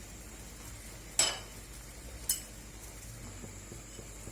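A metal utensil clinks twice against a cooking pot, sharply about a second in and more lightly a second later, as ginger pieces go into the boiling decoction.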